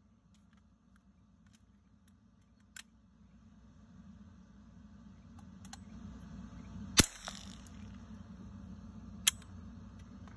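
A few sharp cracks over a low rumble that slowly grows louder. The loudest crack comes about seven seconds in and rings briefly, with lighter clicks and cracks before it and another about nine seconds in.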